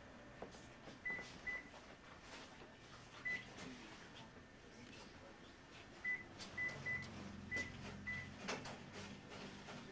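Short, high electronic beeps, all at the same pitch, coming irregularly about eight times, over a low steady hum with a few knocks and clicks.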